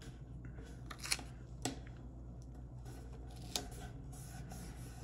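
Faint paper handling as a sticker is pressed and smoothed onto a planner page by hand: light rustling with three short clicks, about a second, a second and a half, and three and a half seconds in.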